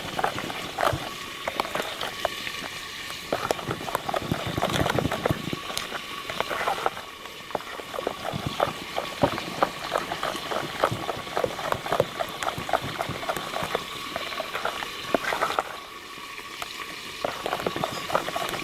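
Cake batter being stirred by hand in a bowl: quick, irregular clicks and scrapes of the utensil against the bowl, with a wet sound of the soft batter.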